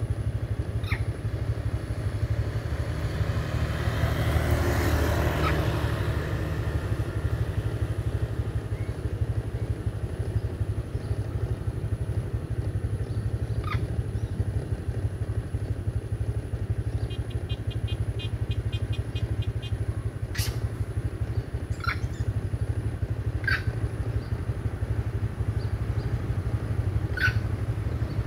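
A motor scooter passes close by, its engine rising and then falling away about four to six seconds in, over a steady low engine rumble. A few short high chirps follow later.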